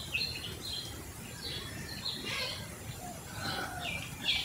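Birds chirping: many short, high calls one after another, with one louder call near the end.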